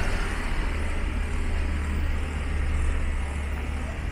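A motor vehicle's engine running close by: a steady low rumble over general street noise.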